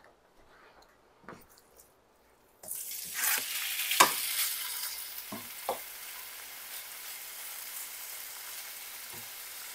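Cubed raw chicken dropping into hot olive oil in a skillet: a sizzle starts suddenly about a quarter of the way in and settles into steady frying. A few sharp knocks come as the knife scrapes the chicken off the plastic cutting board.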